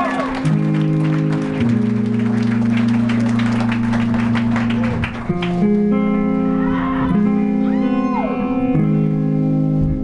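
Live rock band playing: electric guitars ring out sustained chords that change every second or two over drums and cymbals. About halfway through the drums thin out, leaving the held guitar chords with a few sliding notes.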